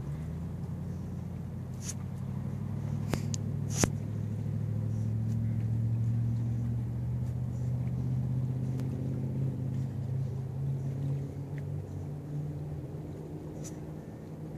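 Low, steady engine drone that swells toward the middle and slowly fades. A few sharp clicks sound over it, the loudest about four seconds in.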